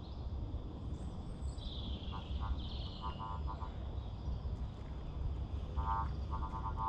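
C.A.T4 cable avoidance tool sounding its pulsing tone in short bursts as it is swept over the ground: it is picking up the field of a buried live electric cable. The bursts come twice, about two seconds in and again near the end, the second louder.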